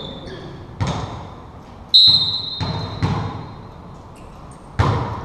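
A referee's whistle blown once, a sharp high tone about two seconds in that rings on in the gym. Volleyball thuds sound around it, the loudest one near the end.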